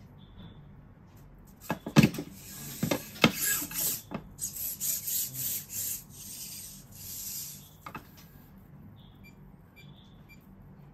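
Laser-cut wooden Nybble robot cat being handled and moved on a table: a quick run of sharp wooden knocks and clatter, then a few seconds of scraping and rubbing, with one last click about eight seconds in.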